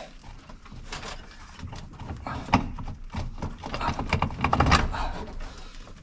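Irregular clicks and knocks of a brake master cylinder and its metal brake lines being handled and shifted by hand, with a denser run of rattling knocks about four to five seconds in.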